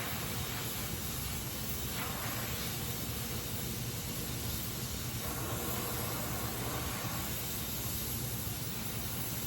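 Gas welding torch flame hissing steadily while aluminium is flame welded.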